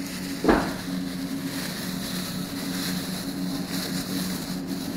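Steady supermarket background hum with a hiss, and a single knock about half a second in.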